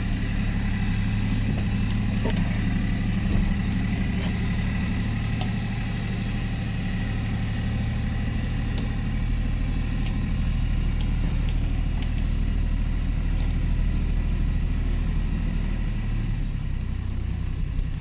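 An engine idling steadily, heard from inside a truck cab, with a low even hum that shifts slightly near the end.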